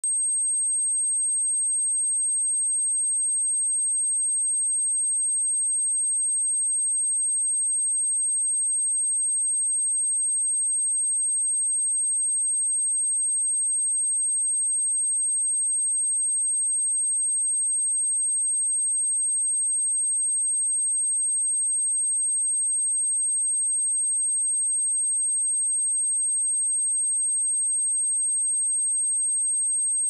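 A single pure sine-wave test tone at 8404 Hz, a steady high-pitched whistle held at a constant level without a break.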